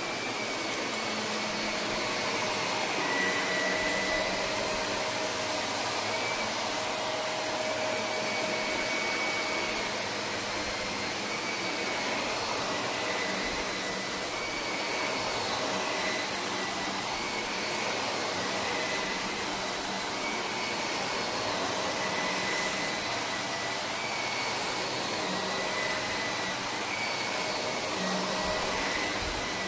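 Shark upright vacuum cleaner running over carpet, a steady motor whine that wavers every couple of seconds as it is pushed and pulled.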